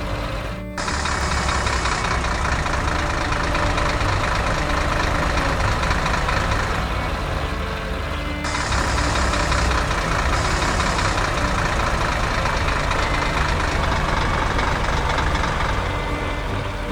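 Heavy vehicle engine running steadily, with a brief break under a second in.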